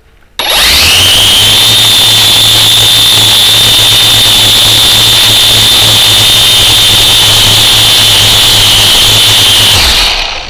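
A small electric motor spins up in about half a second, then whines at a steady high pitch, very loud and close, with a low hum beneath. It is running flat out while lifting the camera into the air, and it fades out near the end.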